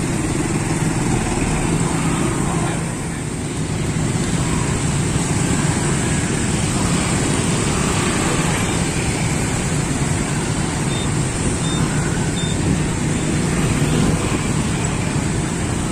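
Steady street traffic noise, mostly motorbikes and scooters streaming past with the odd car, a continuous engine and tyre hum.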